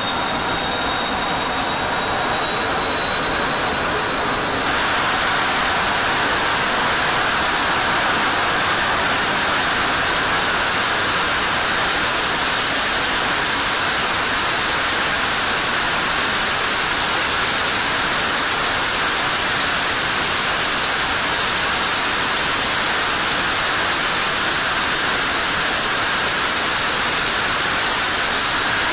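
F-16 jet engine running on a test stand. For the first few seconds a high whine rises slightly over the noise; about four and a half seconds in, the sound steps up to a louder, steady rushing noise as the engine is run up to high power with its exhaust flame lit.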